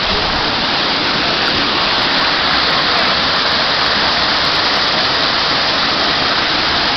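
Waterfall rushing close by: a loud, steady wash of falling water that does not change.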